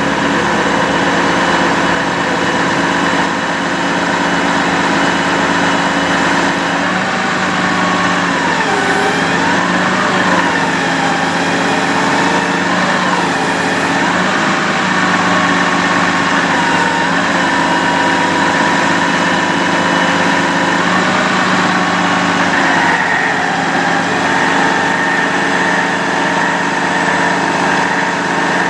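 Diesel engine of a Sterling Bullet bucket truck running steadily with the PTO engaged, driving the hydraulic pump as the Altec AT37-G boom is operated. Several steady whining tones ride over the engine drone, wavering up and down in pitch for several seconds near the middle.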